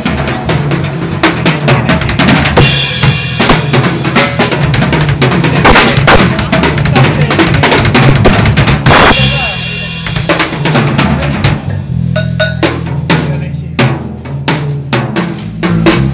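Drum kit played in a sound check: busy patterns on snare and bass drum, with cymbal washes about three and nine seconds in, and the strokes thinning out to sparser hits in the second half.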